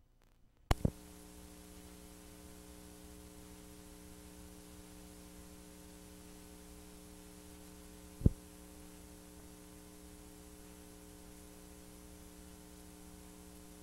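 Steady electrical hum and hiss from an analog videotape playing a blank stretch. It cuts in with two sharp clicks about a second in, and there is one more sharp click a little past halfway.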